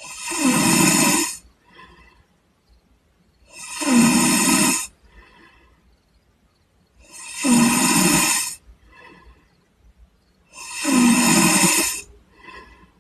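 A man snoring heavily in sleep: four loud snores, about one every three and a half seconds, each followed by a fainter short breath.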